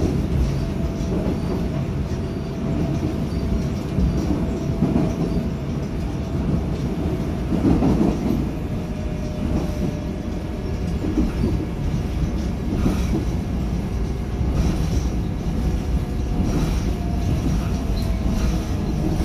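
Seoul Subway Line 4 electric train (set 454, Mitsubishi GTO-VVVF) running, heard from inside the passenger car: a steady rumble of wheels on rail with occasional knocks from the track and a thin steady whine that starts to drop in pitch near the end.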